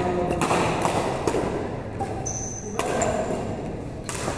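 Badminton rackets striking the shuttlecock in a rally, sharp hits about a second apart, with a couple of short high squeaks of shoes on the court floor.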